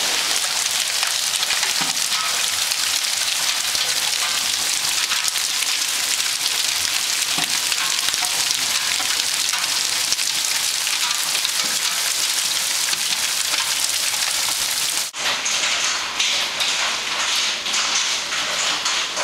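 Hailstorm: hail and heavy rain pelting down, a dense steady hiss of countless small impacts. About fifteen seconds in it changes abruptly to a slightly softer, more uneven patter with separate taps.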